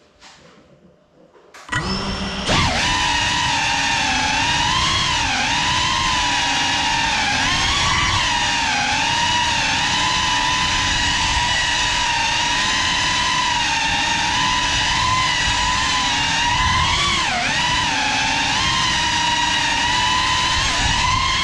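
GEPRC CineLog35 cinewhoop's brushless motors and ducted propellers spinning up about two seconds in, then a loud whine that rises and dips in pitch with the throttle as it flies, heard from the GoPro mounted on the drone.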